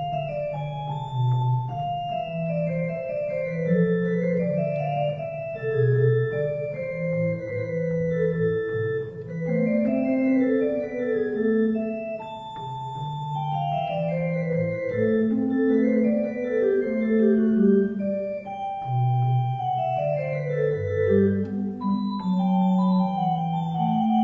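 Church pipe organ played on two manuals: a steady piece with several voices moving in held notes over a walking bass line.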